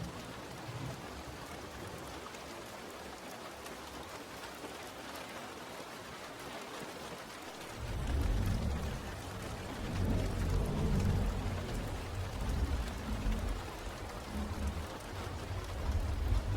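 Steady rain falling, with a low rolling rumble of thunder that starts about halfway through and keeps surging to the end.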